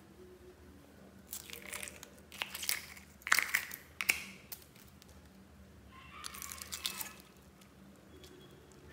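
Slime being scraped out of thin plastic containers with a metal spatula: crinkly plastic and squishy scraping in two bursts, starting about a second in and again around six seconds, with a couple of sharp clicks in the first burst.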